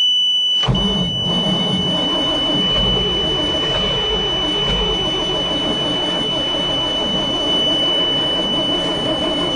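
A dump truck's 427 V8 being cranked over by its starter in the cold, turning over steadily without catching, from about a second in. A steady high-pitched tone runs over it. The owner suspects the engine is flooded, with no choke and fouled plugs.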